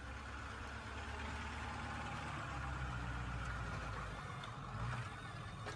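Pickup truck with a front-mounted snowplow blade, its engine running steadily as it plows snow, with a steady hiss over the low engine sound.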